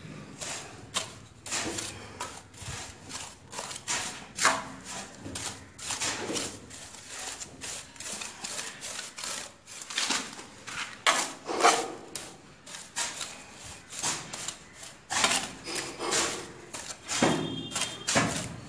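Repeated scraping strokes of a tool dragging through damp sand, spreading and levelling the sand mortar bed for floor tiles; irregular, about one to two strokes a second.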